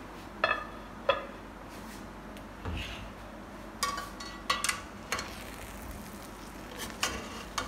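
A metal spoon clinking against the side of a metal cooking pot while the cooked biryani rice is turned over, with irregular sharp clinks, each ringing briefly, and one duller knock a little before three seconds.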